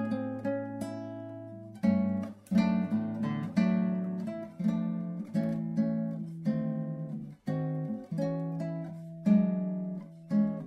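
Background music: an acoustic guitar playing plucked and strummed chords with a melody, each note ringing out and fading.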